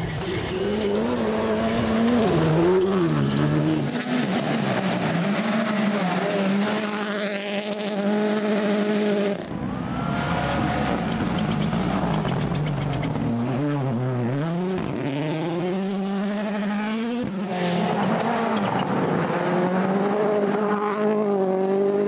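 Turbocharged four-cylinder WRC rally cars at full speed on a gravel stage, several passing one after another. Each engine note rises and drops again and again through gear changes, over tyre noise on loose gravel.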